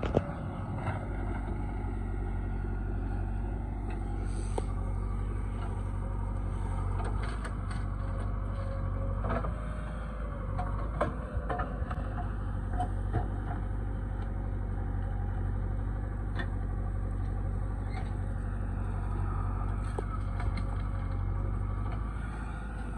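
Diesel engines of a JCB 3DX backhoe loader and a Swaraj tractor running with a steady low drone, with scattered short knocks and scrapes as the loader bucket digs into the soil.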